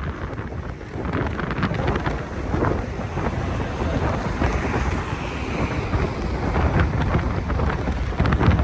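Wind blowing across the microphone in uneven gusts: a low, rumbling rush that rises and falls.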